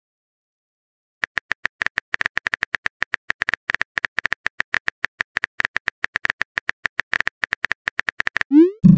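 Phone keyboard typing sound effect: a quick run of short clicks, starting about a second in. Near the end comes a short rising pop of a message alert.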